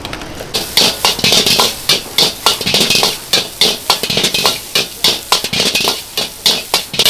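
Background guitar music over fast, irregular metal clanking and scraping, typical of a spatula striking and scraping a wok as fried rice is stir-fried.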